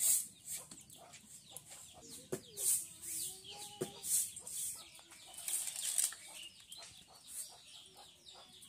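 Chickens clucking, with one hen giving a drawn-out call that bends in pitch a couple of seconds in.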